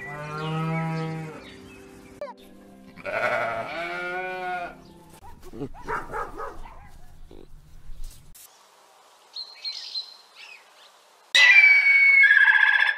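Cattle calls, a long moo and then a higher, bleat-like calf call a few seconds later, over soft background music. Near the end comes the loudest sound, a series of shrill, high eagle calls.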